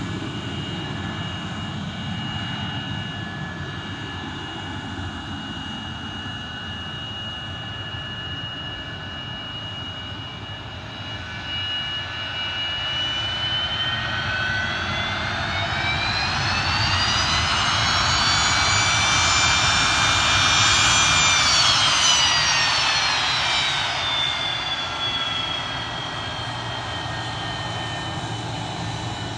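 Boeing 737-200's Pratt & Whitney JT8D turbofan engines whining and rumbling as the jet taxis. About halfway through, the whine rises in pitch and grows louder as the engines spool up, then winds back down to a steady taxi whine.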